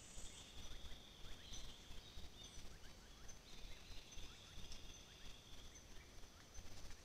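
Faint forest ambience: insects buzzing in steady high-pitched stretches that start and stop, with a few faint short chirps, over a constant low rumbling hiss.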